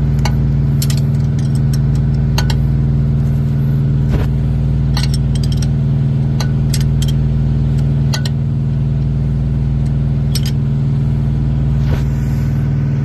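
An engine idling steadily, a constant low hum, with scattered light metallic clicks and clinks of an open-end wrench working the nuts on a turbocharger.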